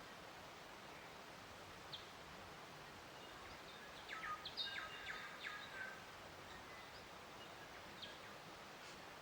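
Songbirds chirping over a faint steady outdoor hiss: one short chirp about two seconds in, a quick run of chirps in the middle, and another single chirp near the end.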